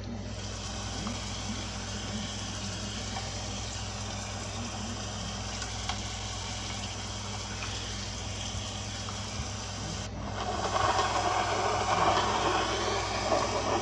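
Rain falling steadily over a low steady hum, swelling into a louder rush about ten seconds in that lasts some three seconds.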